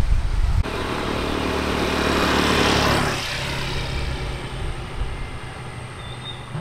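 A brief low wind rumble, then a road vehicle going past: engine and tyre noise that grows louder, peaks about two and a half seconds in, and fades away.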